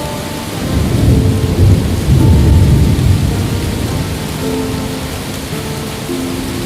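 Steady rain with a rolling rumble of thunder that swells about a second in and fades by about three and a half seconds. Soft, held music notes sound underneath.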